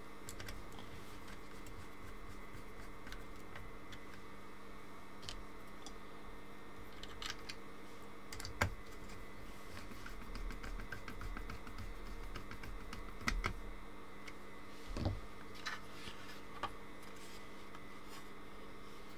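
Faint, scattered small clicks and taps of screws and plastic parts being handled as a Fluke 189 multimeter's circuit board is screwed back into place, a few louder clicks among them, over a steady faint hum.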